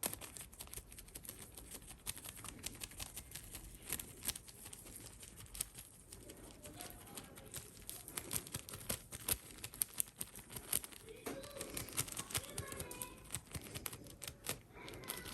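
Faint, irregular small clicks, taps and crinkles of hands handling a powder packet and a wrapped rose bouquet while sprinkling sneezing powder onto it.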